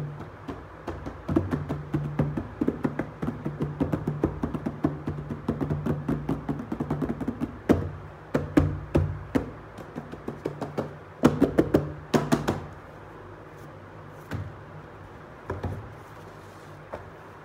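Fingertips and nails drumming and tapping quickly on a cardboard box lid, a fast run of light knocks. About twelve and a half seconds in it thins out to a few scattered taps.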